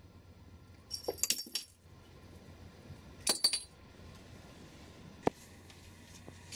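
A small jingle bell on a cat toy jingling in two short bursts as the cat bats at it, about a second in and again around three seconds in, followed by a single light tap a little after five seconds.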